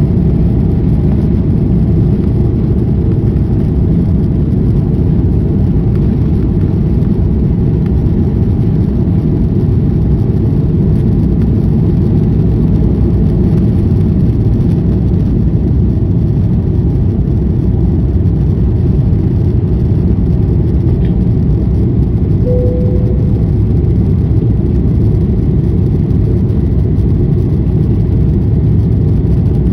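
Steady rumble of an Airbus A330-300's engines and airflow, heard from inside the passenger cabin. A short single tone sounds about three-quarters of the way through.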